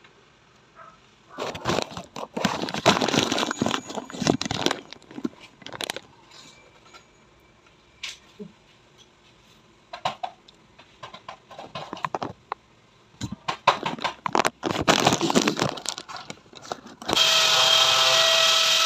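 Thin PVC wall panel crackling and rustling as it is handled and pressed into place by hand, in two stretches of a few seconds. Near the end a power drill starts and runs with a steady whine.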